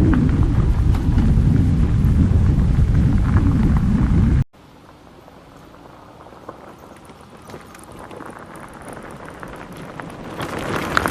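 Wind rumbling heavily on the microphone, which stops suddenly about four and a half seconds in. A much quieter steady rushing follows and slowly grows louder toward the end.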